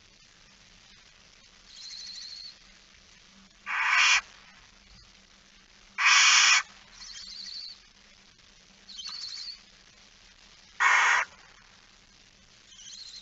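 Barn owls giving harsh hissing calls: three loud ones of about half a second each, near four, six and eleven seconds in, with four fainter, thinner raspy calls between them.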